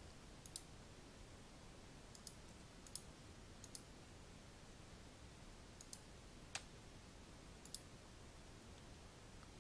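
Scattered computer mouse clicks and keyboard key presses, about seven short, sharp clicks over faint steady hiss.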